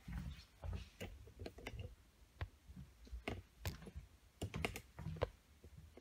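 Irregular clicks and knocks of a handheld camera being picked up and moved, the handling noise of fingers and the body of the device against the microphone.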